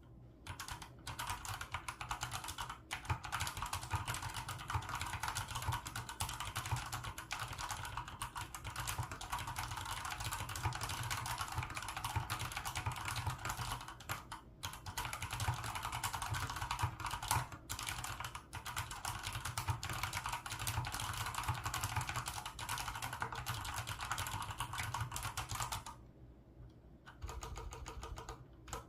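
Typing on a COX CK01 PBT mechanical keyboard with brown tactile switches: fast, continuous keystroke clatter, with a couple of brief pauses and a longer pause near the end.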